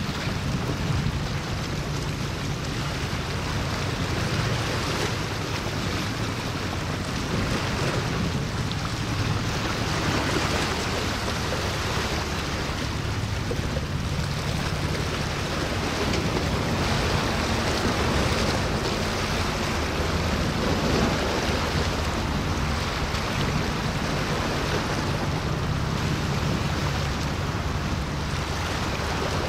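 Steady wind and water noise on open water, with a low, even engine drone underneath.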